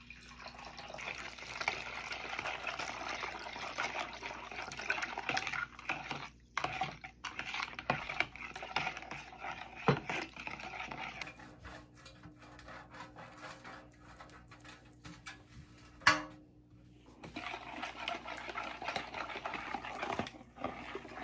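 Water running from a tap, with splashing. The flow stops partway through and later starts again, and in between come scattered clinks and splashes and one sharp knock.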